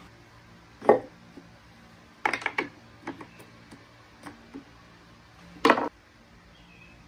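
Hardwood strips knocking and clacking against one another and the wooden floor as they are set down and squared up, in a handful of separate knocks with a quick cluster a couple of seconds in. Near the end comes the loudest clack, as a steel framing square is laid on the wood.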